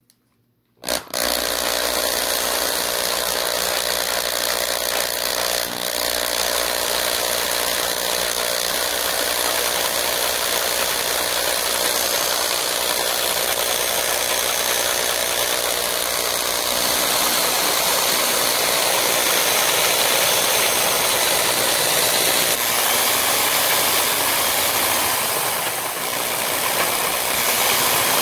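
Cordless drill spinning the crankshaft of a transparent plastic model engine, a steady mechanical whir of the motor and the model's moving pistons and valves, starting about a second in.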